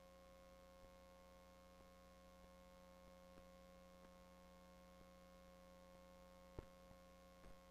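Near silence with a steady electrical hum, and one short soft knock about six and a half seconds in.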